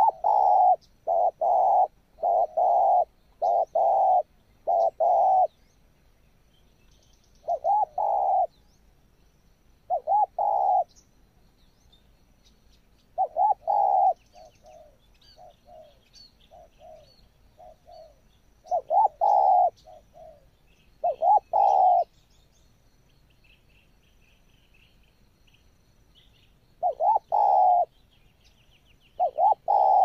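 Spotted doves cooing in repeated phrases of several low coos, with pauses of a few seconds between phrases and fainter coos in the middle; small birds chirp faintly in the background.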